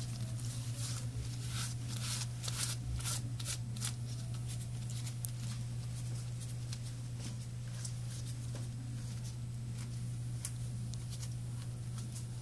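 Small clicks and scrapes of broken glass being picked off a Samsung Galaxy S3's screen frame, thickest in the first few seconds and sparser after, over a steady low hum.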